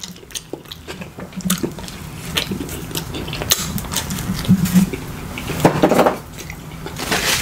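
Close-miked chewing and biting of a pizza slice: a steady run of wet, sticky mouth sounds and sharp crackling clicks.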